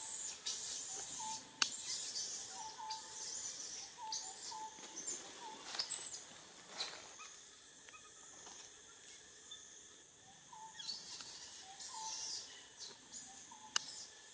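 Forest ambience: high-pitched insect buzzing that swells and fades in bursts, with a short chirping call repeated about once a second and a few sharp clicks.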